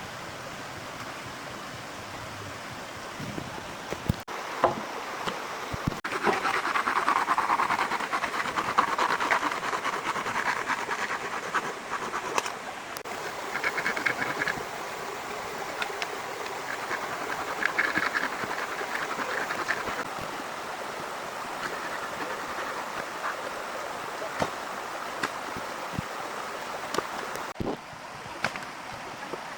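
Steady rain falling, with scattered sharp clicks and pops. The sound swells louder and denser for a stretch in the middle, then settles back.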